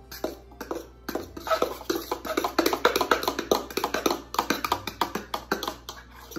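A spoon or whisk clinking and tapping rapidly and unevenly against a mixing bowl as cake batter is stirred by hand, over background music.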